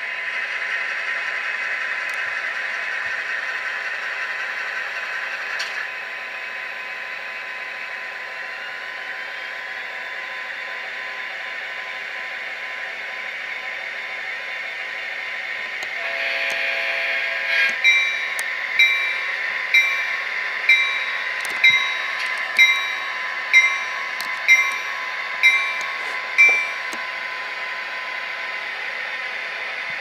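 LokSound decoder in a Kato SD40-2 model diesel locomotive playing its EMD prime-mover sound steadily through the model's small speaker, with no bass. About sixteen seconds in comes a brief horn sound, then the locomotive bell rings about ten strokes, roughly one a second.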